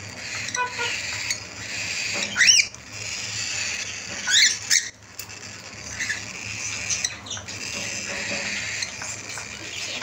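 Cockatiels calling and chattering: two loud, quick rising calls at about two and a half and four and a half seconds in, over steady high-pitched chatter and scattered small clicks as the birds feed at a seed dish.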